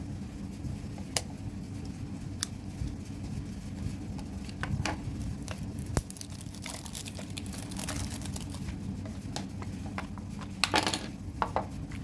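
Packaging handled by hand during an unboxing: scattered sharp clicks and soft crinkling, with a brief louder rustle near the end, over a steady low hum.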